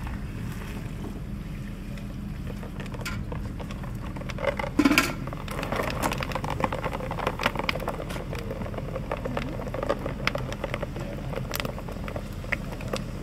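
Water poured onto lump quicklime in a rubber bucket, then the lime crackling and popping in many scattered small clicks as it slakes and heats up, with one louder knock about five seconds in.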